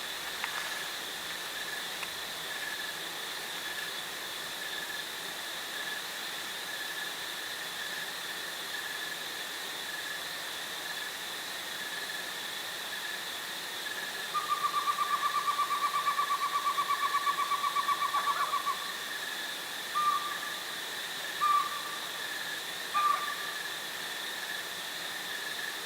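Steady drone of insects in the forest with a hiss under it. Partway through, an animal gives a rapid, even trill lasting about four seconds, then three short calls.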